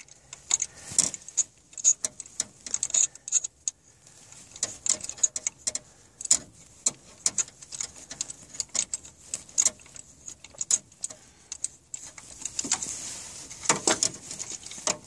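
Homemade spark plug wrench and its socket extension clicking and clinking as a spark plug is unscrewed from the engine: many sharp, irregular metallic ticks, thickest near the end.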